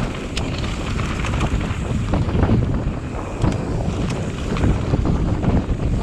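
Downhill mountain bike descending a rough race course at speed: wind buffets the microphone, and the bike's tyres, chain and frame rattle and knock over the bumps in many quick clicks.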